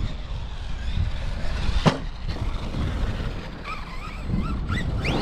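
Arrma Kraton 4S RC monster truck's brushless electric motor whining, rising and falling in pitch as the throttle is worked, over a low rumble. There is a sharp knock about two seconds in.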